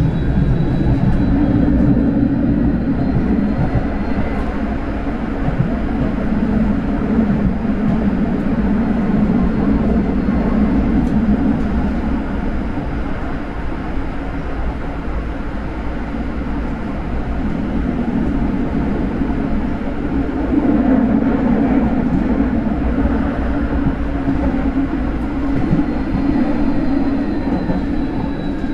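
Vario LF2+ low-floor tram running along the track: a steady rumble of wheels on rail with a faint motor whine that rises at the start and falls near the end.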